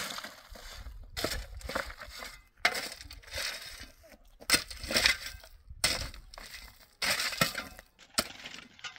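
A shovel scooping and tossing crushed stone, the loose stones clattering and rattling with each stroke, about seven strokes at roughly one every second and a half.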